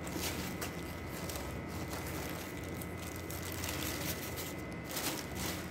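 Crushed biscuit crumbs being poured into a stainless steel bowl: faint soft taps and rustles over a steady low background hum.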